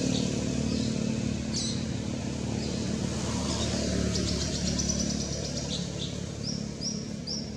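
A motor vehicle engine running steadily in the background as a low hum, with birds chirping over it: a quick trill about four seconds in and several short rising chirps near the end.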